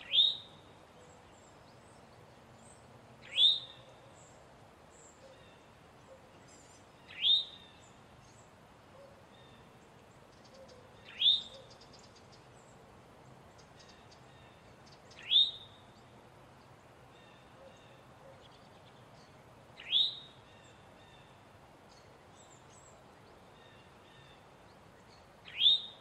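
Male eastern towhee giving its alarm call: a sharp, quickly rising call note, repeated seven times about every four seconds.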